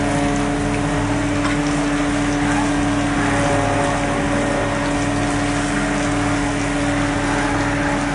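Fishing boat's engine and deck machinery running steadily, a constant hum of several tones over a low, evenly pulsing throb, with a wash of water noise.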